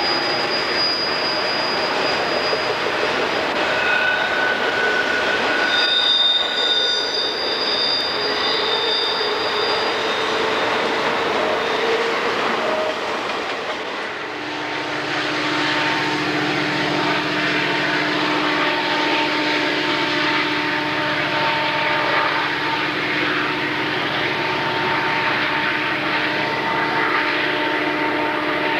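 Freight cars rounding a curve on a steep mountain grade, their steel wheels squealing against the rail in long, shifting high tones over the rolling noise of the train. About halfway through this gives way to diesel locomotives working hard up the grade: a steady deep engine drone over the train noise.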